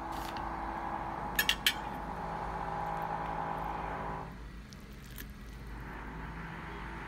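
A metal fork clinks against a ceramic plate three quick times, about a second and a half in. Under it runs a steady background hum that fades for a moment and comes back.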